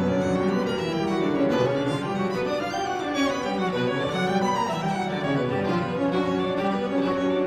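Recorded chamber music from a quartet for clarinet, violin, cello and piano, with sustained bowed violin and cello lines over piano.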